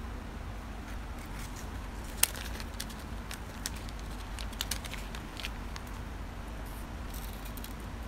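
A small clear plastic bag crinkling and small helicopter parts clicking as they are handled on a tabletop. The clicks are scattered and light, with one sharper click about two seconds in, and there is a short crinkle near the end.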